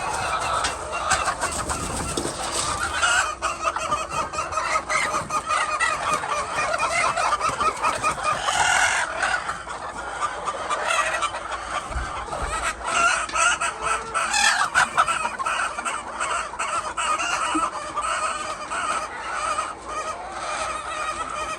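A flock of chickens in a poultry house clucking and calling continuously, many birds at once, with a few louder calls standing out now and then.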